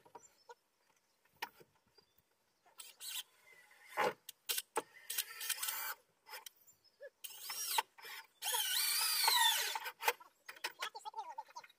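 Cordless power drill running in several short bursts, its motor pitch sagging and recovering as it drives screws, with a few knocks from boards; the longest run is about two-thirds of the way through.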